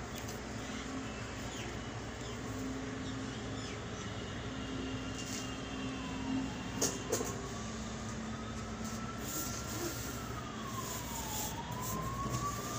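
An emergency-vehicle siren wailing, its pitch sliding slowly down and back up twice, over a steady low hum. A couple of sharp clicks about seven seconds in.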